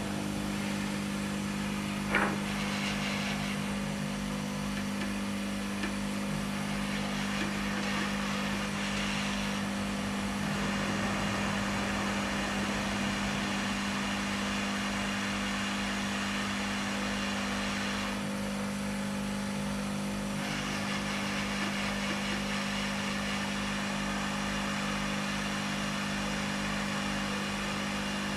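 Steady fan hum and air noise from a solder fume extractor and a hot-air rework station blowing over a laptop motherboard while a replacement capacitor is soldered on. There is a small click about two seconds in.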